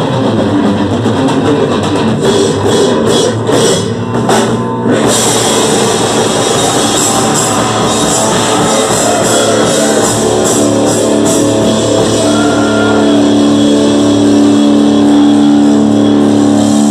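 Death metal band playing live: distorted electric guitar, bass guitar and drum kit. Around four to five seconds in the playing breaks into short stop-start hits, then carries on with dense cymbal work, and steady held notes ring over the last few seconds.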